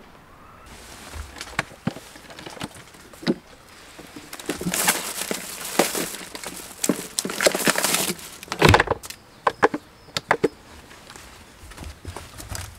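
Rummaging through a hard cooler box: plastic bags rustling and contents clunking, with scattered clicks and a single loud knock about nine seconds in.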